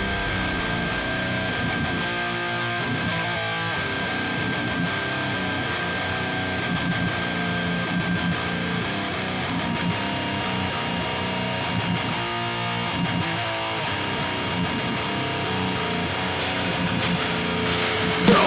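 Guitar-driven heavy rock music playing steadily, with a few sharp hits near the end.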